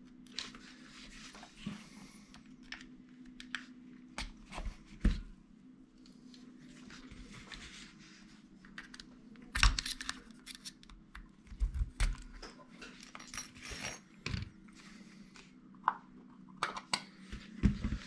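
Irregular clicks, taps and knocks of a plastic electronic throttle body being taken apart with a screwdriver: screws turned out, parts handled and set down. A low steady hum runs underneath.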